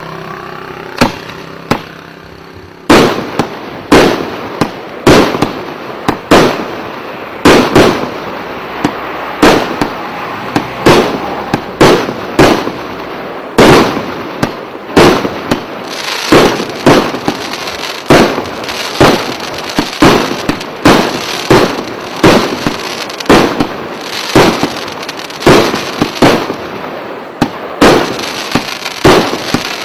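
A multi-shot firework barrage firing. After a couple of bangs at the start, shots go off steadily about once or twice a second from about three seconds in. Each is a sharp bang, with a steady hiss between the bangs.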